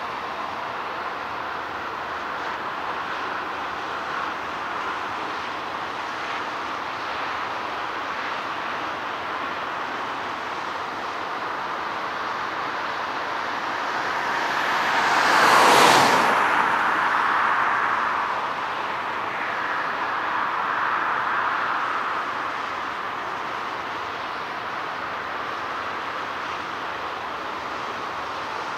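Jet engine noise from a landing Boeing 747-8F's four GEnx-2B turbofans: a steady rushing drone that swells to its loudest a little past halfway, then eases, with a smaller second swell a few seconds later.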